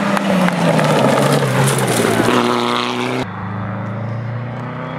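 Rally car engine going by on a gravel stage, its note dropping in pitch as it passes and peaking loudest about two and a half seconds in. About three seconds in the sound cuts off suddenly and a quieter engine note runs on at a steadier pitch.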